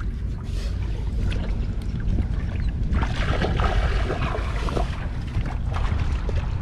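Wind rumbling on the microphone over shallow river water, with water splashing and sloshing from about three seconds in to about five seconds in.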